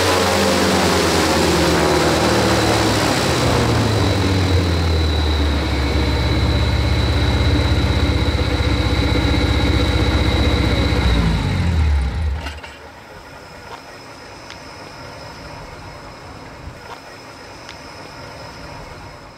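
V8 car engine driving a propeller through a reduction gearbox, its speed falling over the first few seconds to a steady idle, then shut off about twelve seconds in as the propeller coasts down. Only faint background and a few small clicks follow.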